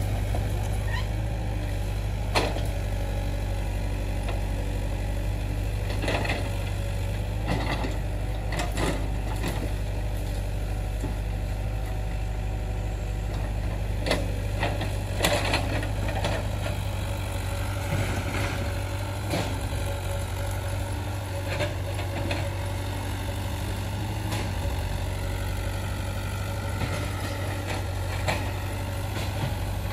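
Hitachi Zaxis mini excavator's diesel engine running steadily while the machine digs out tree roots, with scattered sharp knocks and clanks from the bucket and roots.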